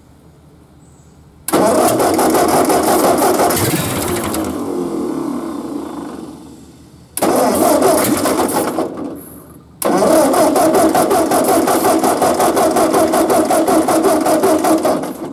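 Ford 8N tractor's four-cylinder flathead engine cranked over on its starter in three long tries, the last a steady cranking with an even beat of compression strokes; the first try fades out slowly instead of stopping short. The engine does not keep running, and the long cranking is running the battery down.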